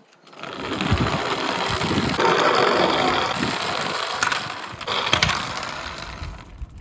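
Several die-cast Tomica minicars rolling and clattering together down a slope: a steady rattling rumble of small wheels that swells about two seconds in. A few sharp clicks of cars knocking come a little later, and the sound fades near the end.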